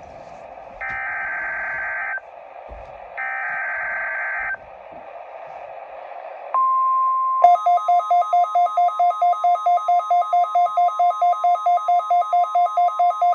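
Three short bursts of NOAA Weather Radio SAME header data tones, a harsh warbling screech repeated with gaps of about a second. About six and a half seconds in, the steady weather alert tone starts. About a second later a rapidly pulsing electronic alarm beep joins it, three or four pulses a second.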